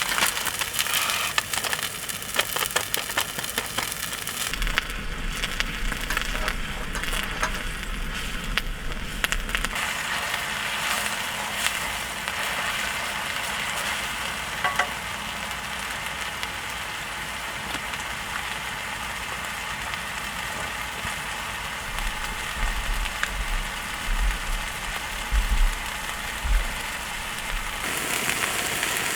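A pot of water at a rolling boil with noodles in it, bubbling and spattering steadily. Many small clicks and knocks come in the first ten seconds or so.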